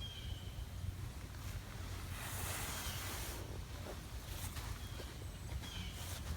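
Footsteps in clown shoes scuffing and crunching through damp sand, with one longer scrape a couple of seconds in. Small birds chirp now and then.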